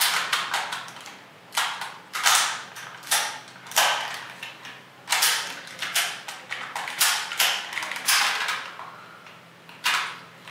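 Hard plastic toy parts clicking, creaking and scraping as the Shark Zord's tail is pushed and clipped back onto its body: a run of irregular clicks, about one every second.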